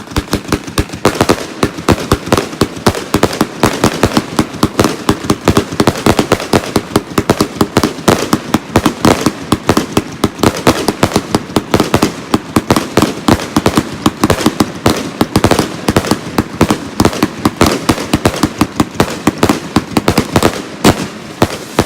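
A Lightning Storm 100-shot salute cake firing a rapid, unbroken barrage of sharp bangs, several a second, that stops shortly before the end.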